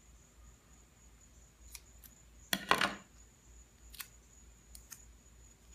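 Scissors snipping a strip of tape in half. The loudest snip comes a little under three seconds in, with a few light clicks of handling around it.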